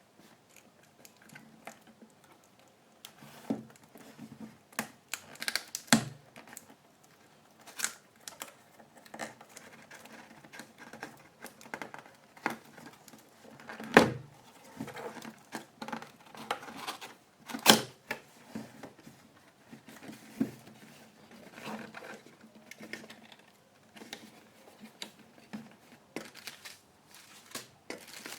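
Laptop packaging being unpacked by hand: cardboard flaps and inserts handled, with scattered clicks, knocks and rustling, and a couple of sharper knocks about halfway through and a few seconds later.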